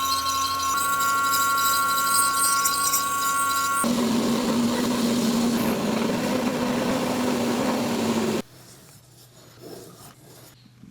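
Powered sharpener running with a steady whine. About four seconds in, steel is pressed to it and grinds with a rough rasping noise, the motor's pitch dropping slightly under the load. The grinding cuts off abruptly about eight seconds in.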